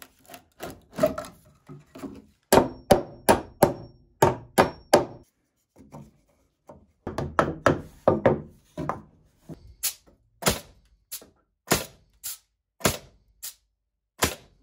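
Hammer blows on wooden framing: runs of sharp knocks, about two to three a second, with a short pause in the middle, as blocking pieces are driven in between wall studs.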